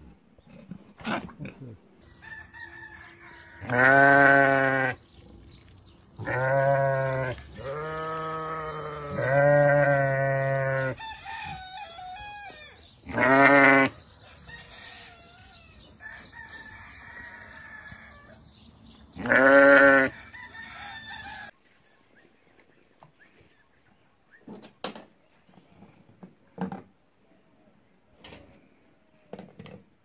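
Sheep bleating: six loud calls between about 4 and 20 seconds in, three of them close together around 6 to 11 seconds. About 21 seconds in the bleating stops, leaving only a few faint knocks.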